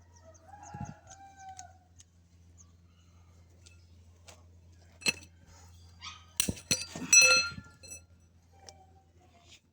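A rooster crowing, loudest about seven seconds in, with a shorter call near the start. Several sharp clicks or knocks come just before the crow, over a low steady hum.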